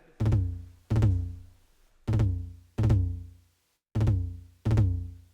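Music: heavy, booming drum-machine bass hits in pairs, each a short pitched low note that starts sharply and dies away, three pairs about two seconds apart.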